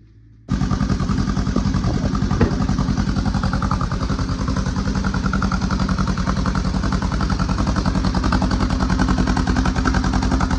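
2015 Polaris RZR 900's freshly rebuilt parallel-twin engine on its first start after a complete overhaul: a brief faint crank, then it catches about half a second in and runs steadily with rapid, even firing pulses. There is one sharp click about two and a half seconds in.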